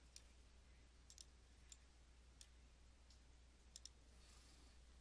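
Near silence with about seven faint computer mouse clicks, two of them quick double clicks, over a low steady electrical hum.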